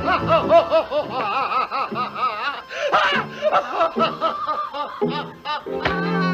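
Cartoon cat snickering in a long run of chuckling laughs, its pitch wobbling rapidly up and down.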